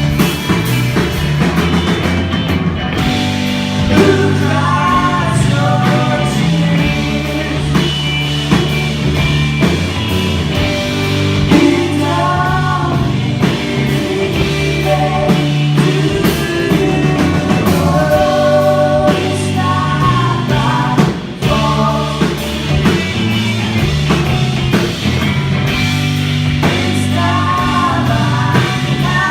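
Live rock band music with singing: a voice sings in several phrases over a steady bass line and drums.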